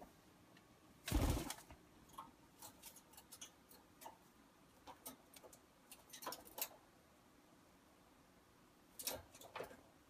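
Indian ringneck parakeet climbing on a wire cage: faint, scattered small clicks and taps of beak and claws on the bars, with a louder thump about a second in.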